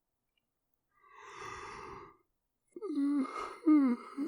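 A person yawning: a breathy intake of air about a second in, then a drawn-out vocal yawn whose pitch slides downward in a few short swoops.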